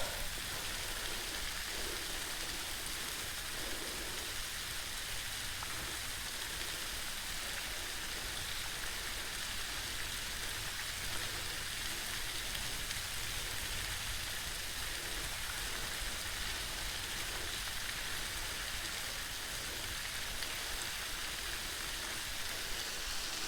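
Waterfall, a steady even hiss of falling water.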